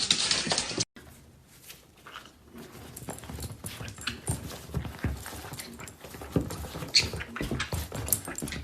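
A dog's sounds: irregular soft thumps and clicks. They follow a louder, hissy sound that cuts off abruptly just under a second in.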